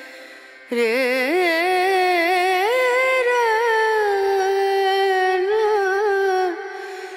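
Background music: a solo voice singing one long, ornamented phrase with a wavering, sliding pitch, starting about a second in and dropping away near the end.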